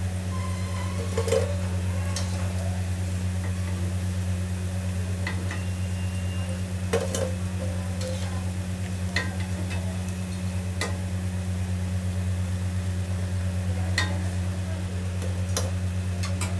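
Hot oil sizzling in a kadhai as fried potato balls are scooped out with a perforated metal skimmer, which clinks against the pan about nine times. A steady low hum runs underneath.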